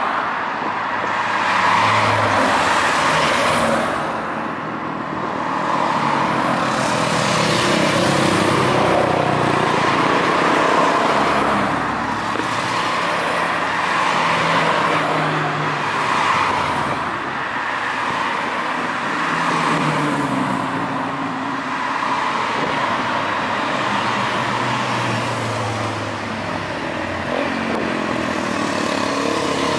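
A steady stream of cars, many of them classic cars, driving past one after another close by. Engine and tyre noise swells and eases every few seconds as each vehicle goes by.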